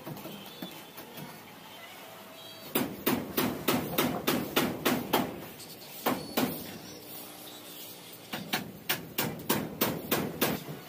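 Rapid sharp knocks in two runs of about a dozen each, roughly five a second, with a pair in between.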